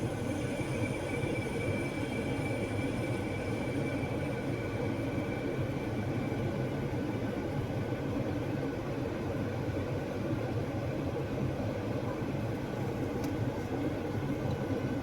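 Steady running of a 2022 Jeep Grand Cherokee's air conditioning system with the engine idling, including the hissing that the A/C makes while its refrigerant pressure is low. The sound holds even throughout.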